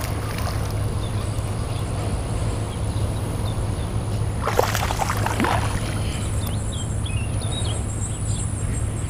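Steady low rumble of wind on the microphone. A brief louder scuffle comes about four and a half seconds in, followed by faint bird chirps.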